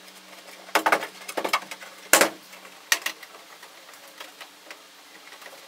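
Crackling scrapes and clicks of soft pinch-weld edge trim being pushed onto the edge of a sheet-steel fender flare: a cluster of scrapes about a second in, a sharp crack just after two seconds, a click near three seconds, then a few small ticks.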